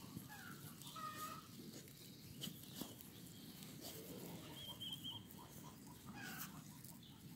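Faint, short animal calls and chirps, with a run of quick short notes about two-thirds of the way through and a few light clicks.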